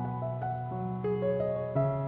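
Background music: a slow melody of held keyboard notes, the pitch changing every half second or so.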